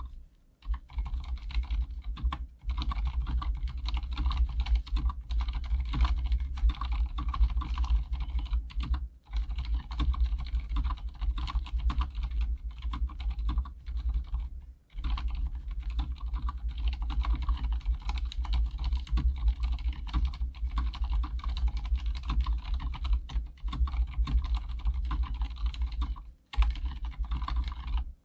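Fast, continuous typing on an Archon K79 full-size mechanical keyboard with Cherry silent red switches and PBT doubleshot keycaps. There are short pauses a few times.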